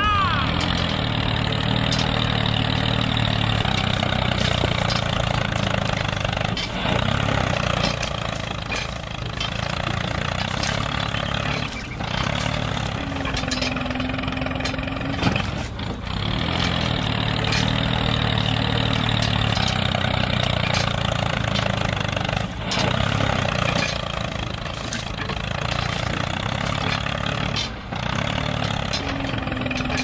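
Tractor engine running steadily, a recorded engine sound laid over a toy tractor, which repeats about every fifteen seconds.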